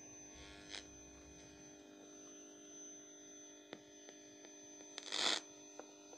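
Small portable FM radio's speaker giving a steady hum with a thin high whine, tuned to a homemade FM transmitter built from an old TV tuner. A few clicks and a loud brief scrape about five seconds in as the radio is handled and moved.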